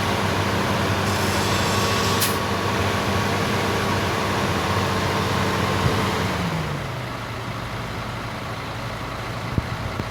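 Heavy diesel engine running at raised revs. About six seconds in the revs drop and it settles to a lower, quieter idle. A short hiss and a sharp click come about two seconds in.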